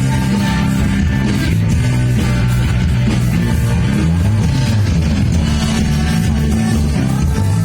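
A rock band playing live and loud, with guitars.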